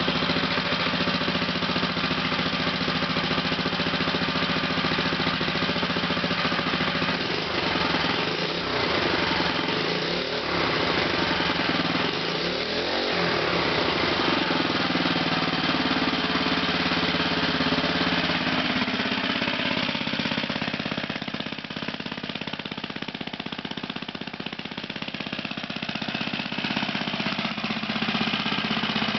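Freshly rebuilt 1969 Tecumseh H25 single-cylinder four-stroke engine running steadily on a test stand, with small shifts in speed.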